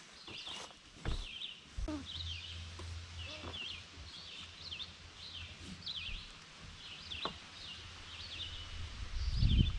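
A songbird singing the same short, quick phrase over and over, about once a second, with a few faint clicks of the strap being handled. Near the end a low thud is the loudest sound.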